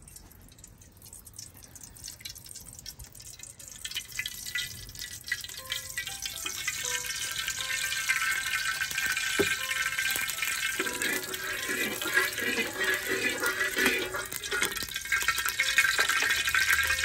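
Cooking oil sizzling and crackling in a hot aluminium pressure cooker, starting as scattered pops and building to a dense, steady sizzle as the oil heats. There is a single sharp knock about nine seconds in.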